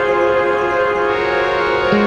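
Background music of slow, sustained chords.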